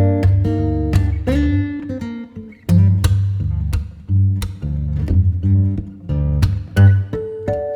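Background music: plucked acoustic guitar with a bass line and a steady beat.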